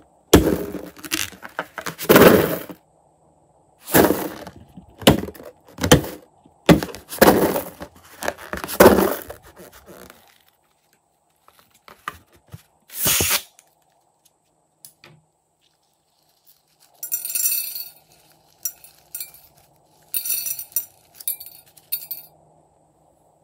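A rubber balloon is squeezed and handled, with a string of loud rubbing noises, then snipped once with scissors. Near the end, small plastic gems tumble out of it and clink in a run onto a glass dish.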